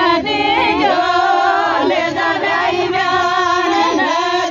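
A group of women singing a Meena folk song (ladies' wedding geet) together, several voices carrying the melody without instrumental backing.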